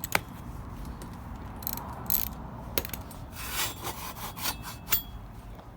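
BMX bike parts being worked loose by hand: scraping and rubbing of metal parts, with a few sharp clicks.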